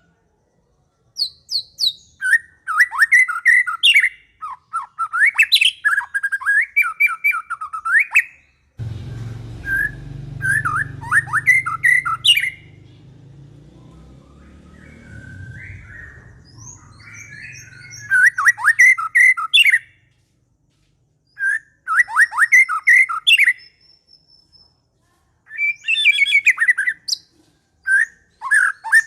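Murai songbird singing in repeated bursts of quick, loud chirping and whistled phrases, separated by short silences. A low rumbling noise runs underneath the song for several seconds in the middle.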